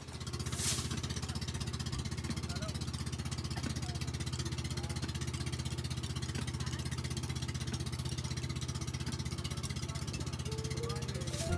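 Engine of an outrigger bangka boat running steadily underway, a low, even pulsing drone. A short hissing whoosh comes about a second in, and music starts near the end.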